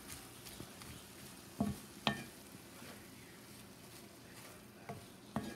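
Dried fish and tomatoes sizzling in a cast-iron skillet while a wooden spatula stirs them, with a few sharp knocks of the spatula against the pan.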